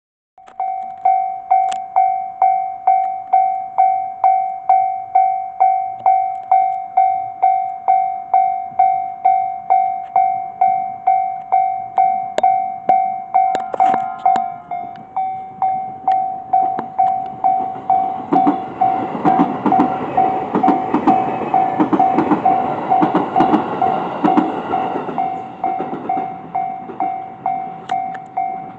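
Japanese level-crossing warning bell ringing about twice a second. A train passes through between about eighteen and twenty-five seconds in, its wheels clattering over the rails beneath the bell.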